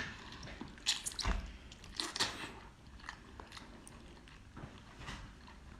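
Close-up eating of shellfish: a few sharp crunches and cracks in the first half, then quieter chewing with small clicks.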